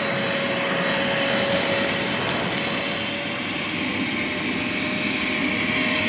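Einhell 12-litre wet and dry vacuum running steadily, a rush of air with a steady motor whine, as its hose nozzle sucks up wood shavings and builder's debris.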